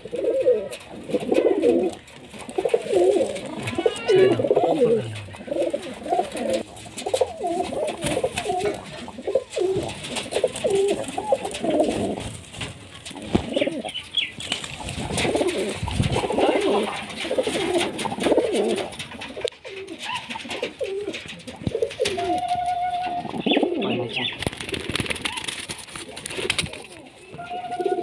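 A flock of Murshidabad giribaz high-flyer pigeons cooing, many calls overlapping without pause, with scattered short clicks among them.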